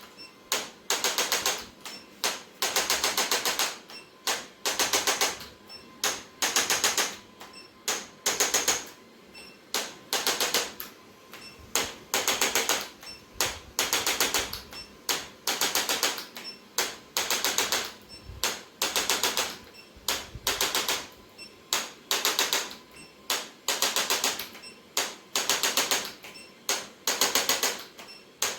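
Handheld electric chiropractic adjusting instrument firing short bursts of rapid clicking taps, roughly one burst a second, during a spinal adjustment.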